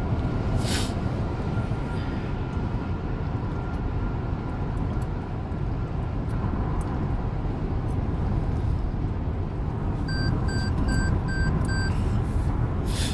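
Steady road and engine noise inside a car's cabin at highway speed. About ten seconds in there are five short, evenly spaced electronic beeps.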